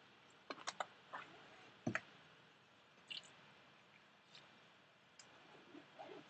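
A few faint, scattered clicks and knocks over quiet background hum. They come thickest in the first two seconds, with one heavier knock about two seconds in.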